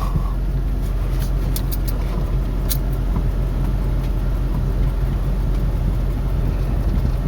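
Truck engine running with a steady low rumble, a few faint clicks over it.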